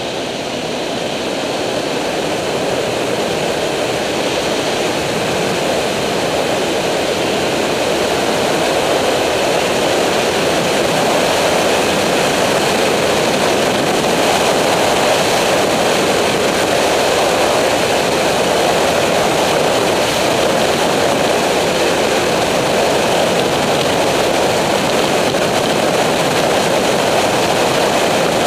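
Wind rushing over the microphone of a camera on a Triumph Street Triple's inline three-cylinder engine being ridden at road speed, heard as a steady roar. It grows louder over the first several seconds as the bike gathers speed, then holds.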